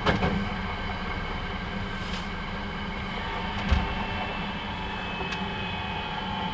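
Hankyu 9300-series electric train running at speed, heard from inside the car: a steady rumble of wheels on rail with a faint steady whine. A knock comes at the start and a sharper thump about three and a half seconds in.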